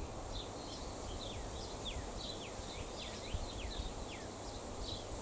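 Small birds chirping: a run of short, high, downward-slurred calls, several a second at times, over a steady low background hum.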